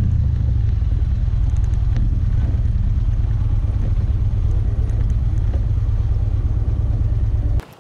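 Motorcycle on the move along a dirt road, a steady low engine-and-riding rumble that cuts off suddenly near the end.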